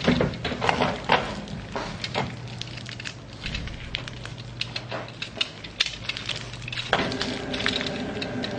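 A pocket knife and fingers cutting open a small thread-bound bundle: irregular clicks, snips and crackles of thread and wrapping being cut and pulled apart. A steady hum joins about seven seconds in.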